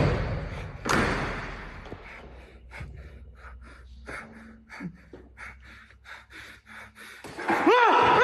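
A door bangs hard twice, about a second apart. Then come quick footsteps scuffing across a gritty concrete floor, and near the end a man yells a drawn-out "ah!"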